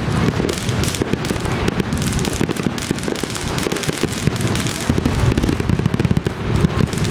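Aerial firework shells bursting in a dense, overlapping barrage: a continuous run of booms and crackle with no gaps between bursts.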